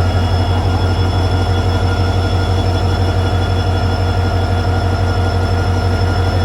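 EMD WDP4D diesel locomotive running, a steady low drone with constant high whines over it.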